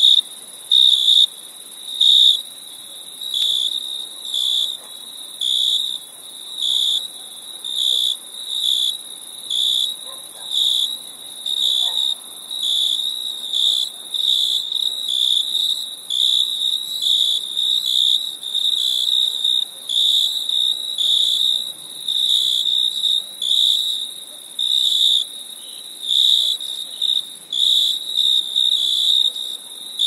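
Crickets chirping: a steady series of short, high chirps on one pitch, about one a second and coming a little quicker later on, with a fainter steady high trill behind.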